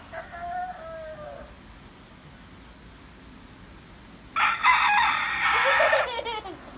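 A rooster crows once, a loud call of nearly two seconds beginning a little past the middle and trailing off in a falling note.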